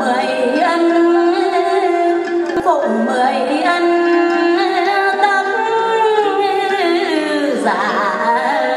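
Woman singing a hát văn song, Vietnamese folk singing, with an ornamented melody and wavering held notes.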